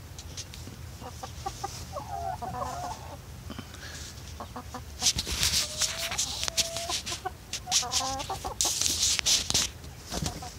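Barred Rock and Australorp hens clucking, with several drawn-out pitched calls. Loud rustling noise comes in bursts about halfway through and again near the end.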